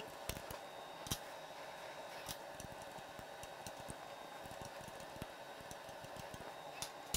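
A few light, sharp clicks and taps of hand tools and small metal parts as the old ignition components are worked loose by hand, over a steady background hum.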